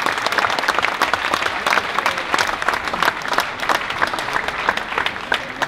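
Crowd applauding, a dense patter of many hands clapping that thins to scattered claps near the end.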